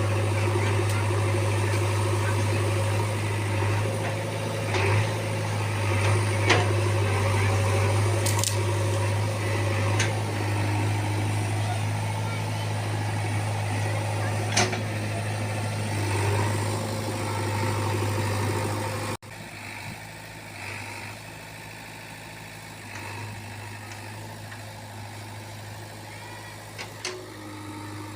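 JCB backhoe loader's diesel engine running steadily, with a few sharp knocks through it. The level drops abruptly about two-thirds of the way through, and the engine carries on quieter.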